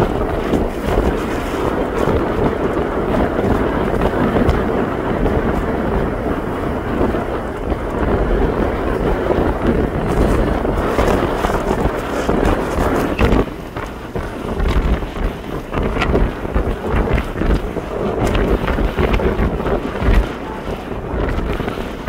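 Wind buffeting the microphone on a ferry's open deck over a steady rumble of the ship underway. The gusts ease a little just past halfway.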